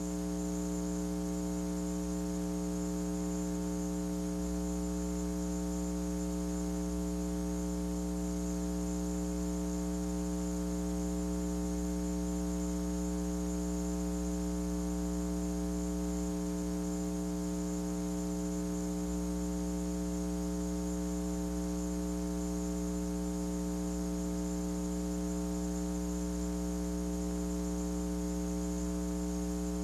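Steady electrical mains hum, a buzzy drone with a stack of overtones and a light hiss, unchanging throughout.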